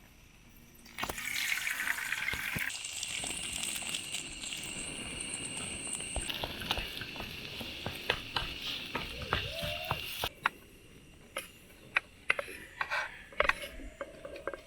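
Water running steadily for about nine seconds and cutting off suddenly, followed by a few light clicks and knocks.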